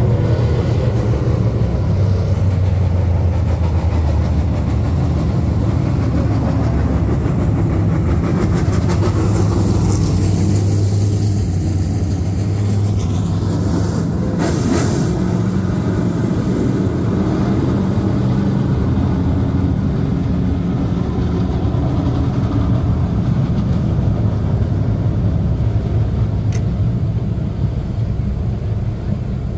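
V8 engines of a pack of dirt late model race cars running as they circle a dirt oval, a steady low rumble that swells about halfway through as cars pass close by.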